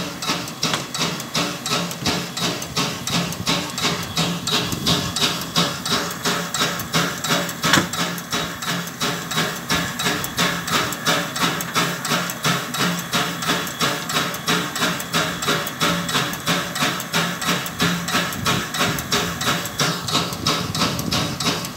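Steam-driven air pump (brake air compressor) on a Tkt48 steam locomotive working steadily, a regular knocking beat of about two to three strokes a second as it compresses air for the brakes, with one sharper knock about eight seconds in.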